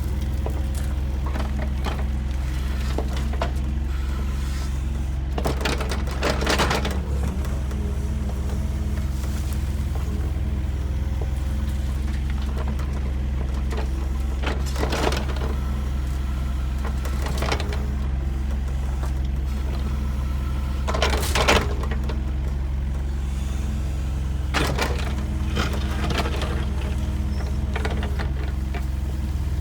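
Diesel engine of heavy earthmoving equipment running steadily, with several short bursts of scraping and clattering as dirt and rock are moved, the loudest a little past the middle.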